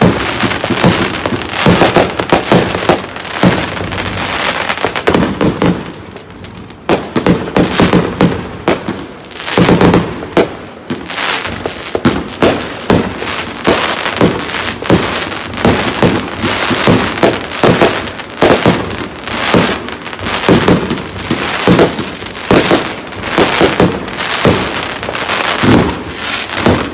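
Many fireworks going off in quick succession: rockets and aerial shells bursting overhead in a dense run of bangs and crackling, with only brief lulls.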